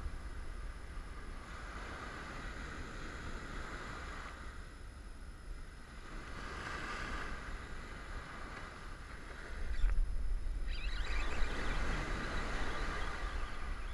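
Ocean surf washing up a sandy beach: the hiss of breaking waves and spreading foam rises and falls every few seconds. About ten seconds in, a wave breaks close by and the sound grows louder, with a deep rumble underneath.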